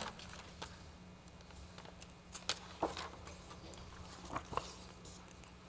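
Quiet meeting-room tone: a steady low hum with scattered faint clicks and taps, a few of them a little louder near the middle.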